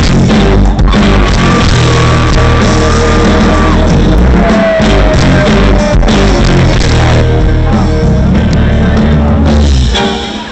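A live rock band playing loudly, with heavy bass and drums under a long held melody line, recorded as overloaded, poor-quality sound.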